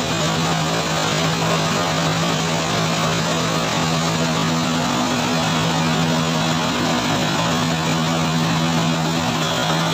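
Rice milling machine running steadily: a constant low hum under a dense rushing noise as milled rice grains stream down the screen chute into a sack.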